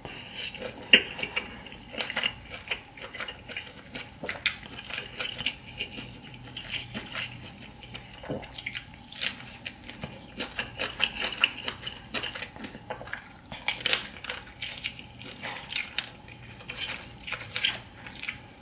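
Close-miked chewing and wet mouth and lip smacking while eating sauced seafood, a steady run of many short, sticky clicks.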